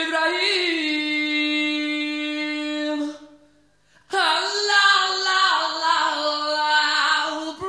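Background song: a singing voice holding long notes, in two phrases with a brief pause about three seconds in.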